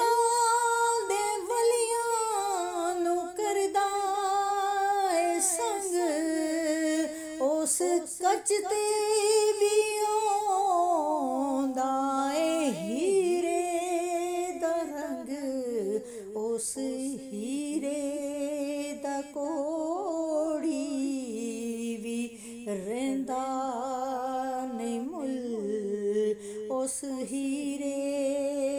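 A woman's solo voice singing a Punjabi naat in long, wordless held notes that glide slowly up and down, close to humming.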